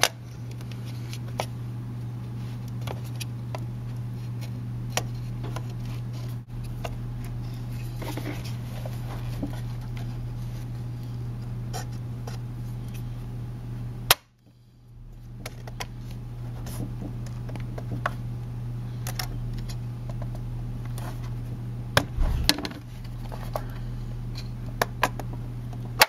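Light clicks and scrapes of a laptop hard drive and its cables being handled and slid into place inside an open Mac Mini case, over a steady low hum. The sound cuts out for about a second halfway through, and there is a dull thump near the end.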